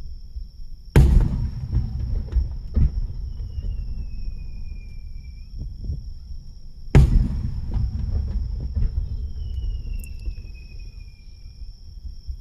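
Two aerial fireworks shells bursting, one about a second in and one about seven seconds in, each a sharp boom followed by several seconds of low rumbling echo and crackle. A steady high-pitched insect chirring runs underneath, with faint falling whistles between the bursts.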